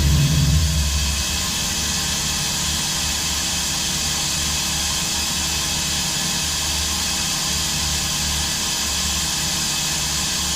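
DMG Mori NTX1000 CNC mill-turn machine running, a steady hiss over a low hum, a little louder in the first second.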